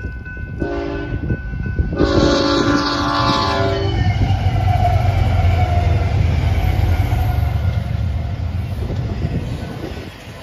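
BNSF diesel locomotives sound their multi-note air horn, a short blast then a longer one, then pass close by with a deep engine rumble, followed by the rolling noise of double-stack container cars.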